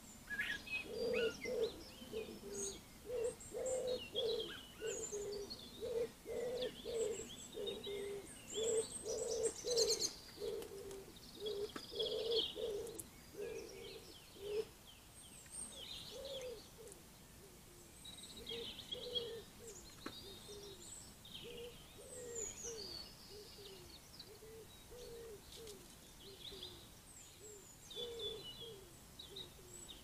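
A pigeon cooing in a long run of low, evenly repeated notes through the first half, fading to scattered softer coos later. Small garden birds chirp and sing in short high calls throughout.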